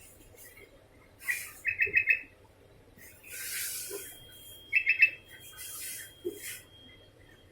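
Sooty-headed bulbul (kutilang) calling: two quick runs of about four short clear notes, roughly three seconds apart, with bursts of rushing hiss between them.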